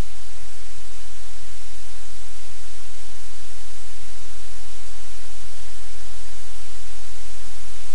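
Loud, steady static hiss with a low hum beneath it, unchanging throughout.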